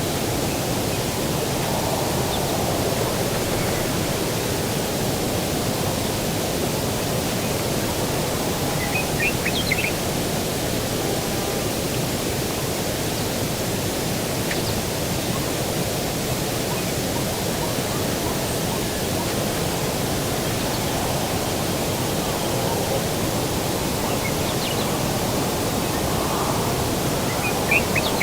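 Steady rushing outdoor ambience, even and unchanging, with a few short bird chirps about nine seconds in and again near the end.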